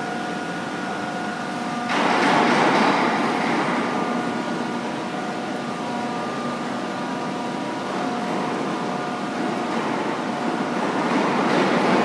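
Large heavy-duty face lathe running, a steady machine hum with several held tones. A louder rushing noise comes in suddenly about two seconds in and eases off, then swells again near the end.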